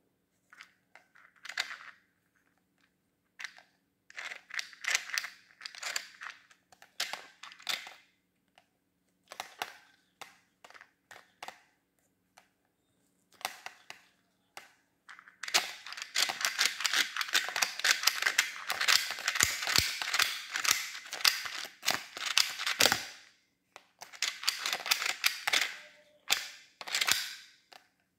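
Hard plastic clicking and clattering from a toy handheld mini electric fan and its clear plastic propellers being handled, in short irregular bursts. A longer stretch of rapid, dense rattling runs through the middle, with a faint steady low hum underneath.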